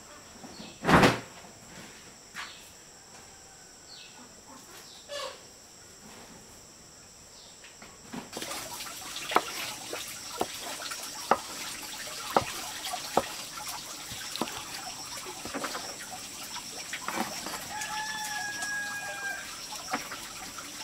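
A loud single knock about a second in, then a cleaver chopping a boiled chicken on a wooden chopping block, one sharp chop about every second. A chicken calls once in the background near the end, over a steady high insect hiss.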